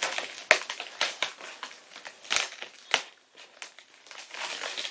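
Small scissors cutting through plastic packing tape on a cardboard box: the tape crinkles and crackles, with several sharp snips and clicks and a brief lull about three seconds in.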